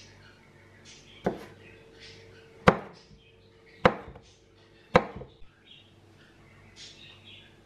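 Knife chopping bell peppers on a cutting board: four sharp chops about a second apart, the first about a second in.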